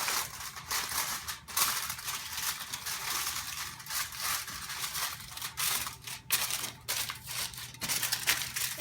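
Aluminum foil crinkling and crackling as it is handled and pressed into a square baking pan, with many sharp irregular crackles throughout.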